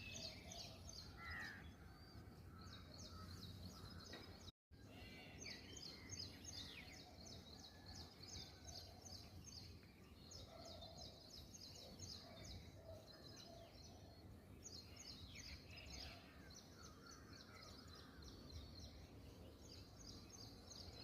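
Faint early-morning chorus of birds: repeated high trilling phrases lasting a few seconds each, over scattered lower calls and a low steady hum. The sound cuts out completely for a moment about four and a half seconds in.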